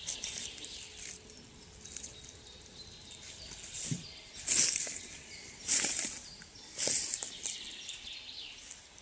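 Footsteps rustling through dry fallen leaves on a forest floor, about one step a second, louder from about four seconds in.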